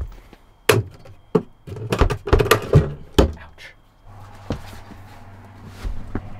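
Sharp knocks and thuds as hiking boots are taken down from a wooden overhead cabinet and its hinged door is swung shut, in a quick cluster during the first three seconds or so. After that a steady low hum, with soft scuffs and taps as a boot is pulled on.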